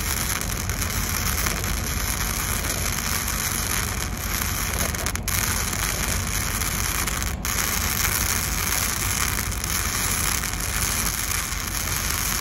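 Gasless flux-cored wire welding arc burning steadily, a continuous crackling sizzle as the bead is run along a steel beam.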